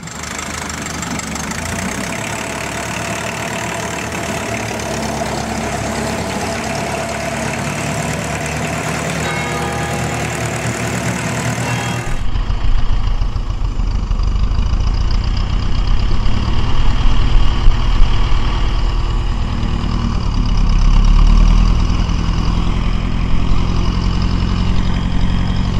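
Ferguson TE20 tractor's four-cylinder Standard wet-liner engine running steadily. About twelve seconds in, the sound cuts to a louder, deeper recording of it running, which swells briefly a little after twenty seconds in.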